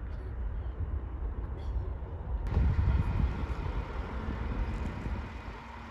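Low, steady rumble of a distant jet airliner. About two and a half seconds in, the sound changes abruptly to a louder rumble with added hiss.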